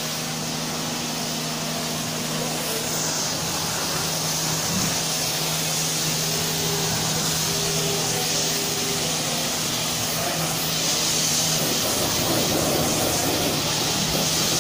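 Pressure-washer wand spraying a steady jet of water over a foam-covered car body to rinse it off, over a steady motor hum. The spray gets a little louder about eleven seconds in.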